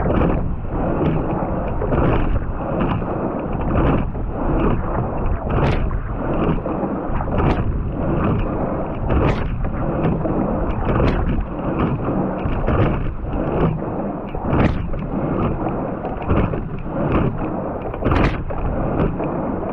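Quad scull being rowed at race pace, about 33 strokes a minute. A steady rush of water along the hull and oar blades, with a sharp knock from the oars in their oarlocks once each stroke, about every 1.8 seconds.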